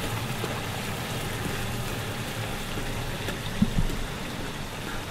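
Chicken pieces sizzling as they sauté in olive oil with onions and garlic in a frying pan, a steady hiss, with a few light knocks of a cooking utensil against the pan as the chicken is chopped up, the loudest a little past halfway.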